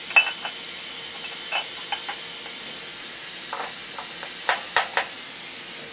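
Aluminium blocks and steel vise tooling clinking and knocking together as the parts are set into the mill's vises: a scattered run of sharp metallic clinks, some ringing briefly, with a cluster of three near the end. A steady hiss runs underneath.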